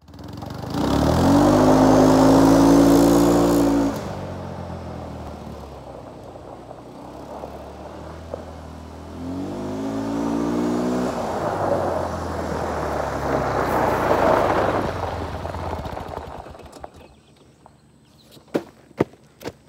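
Kawasaki ATV engine revving up as it pulls away, fading with distance, then revving up again as it comes back close by, dying down about three-quarters of the way through. A few sharp clicks and crunches on gravel follow near the end.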